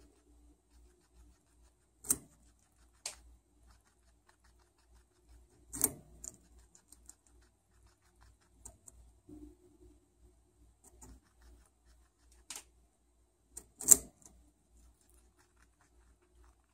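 Guinea pig biting and chewing a raw carrot: five or so sharp crunches, the loudest near the end, with faint nibbling between.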